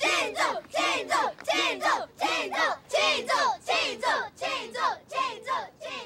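A group of children and adults chanting 'qìngzhù!' ('celebrate!') over and over in unison, a quick even beat of about three syllables a second.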